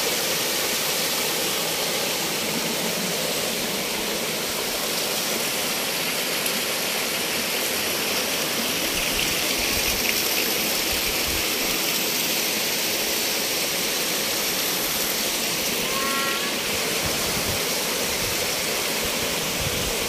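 Small waterfall cascades spilling over rock ledges into a pool, with a shallow stream running over rocks: a steady, even rush of falling and flowing water.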